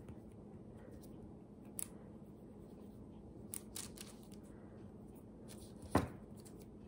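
Small knife trimming soft modelling clay in a silicone mould: faint scraping with a few light clicks. About six seconds in, a sharp clack as the knife is set down on the table.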